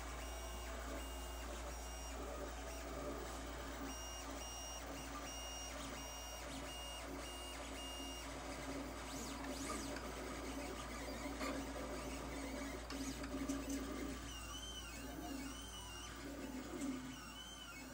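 Lulzbot TAZ 3 3D printer running a print: its stepper motors sing in changing pitches as the print head and bed move, over a steady low hum. The tones hold and step in short runs at first, and warble up and down near the end as the moves turn to curves.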